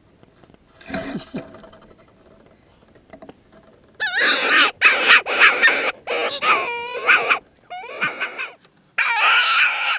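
Loud, wavering squeals blown close by in several runs with short breaks, starting about four seconds in: a hand-blown distress call used to call spooked javelina back.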